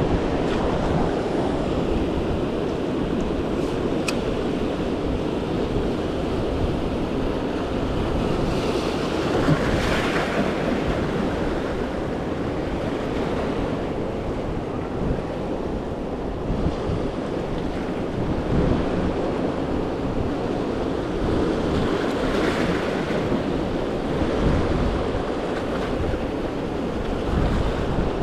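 Ocean surf washing steadily, with wind buffeting the microphone; waves surge louder about ten seconds in and again around twenty-two seconds.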